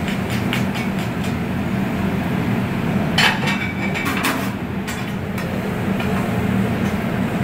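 Metal spatulas clanking and scraping on a large round flat-top griddle as the cook chops and turns the food, in scattered strikes with a louder run about three seconds in. A steady low hum sits underneath.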